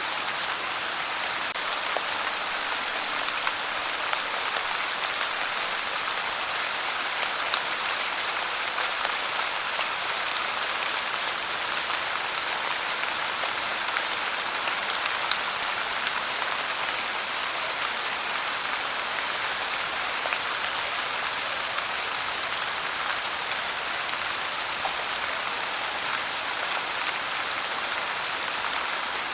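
Steady rain falling, an even hiss of drops with faint scattered patters of individual drops hitting a surface.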